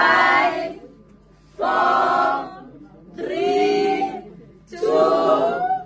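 A crowd of people chanting together in unison: four drawn-out calls about a second and a half apart.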